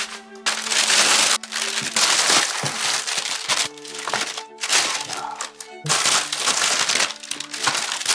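Thin plastic carry-out bag crinkling loudly in repeated bursts as it is pulled open and handled, over light background music.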